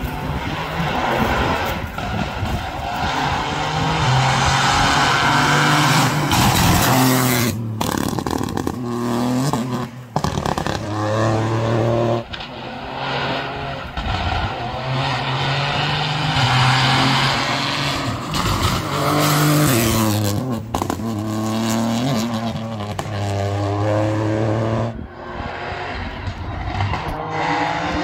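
Rally car engine revved hard on a tarmac stage. The pitch climbs and falls again and again with gear changes and throttle lifts, with several sudden short cuts in the sound.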